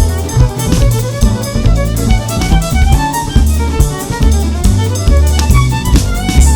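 Music with a steady drum beat, heavy bass and a string-like melody.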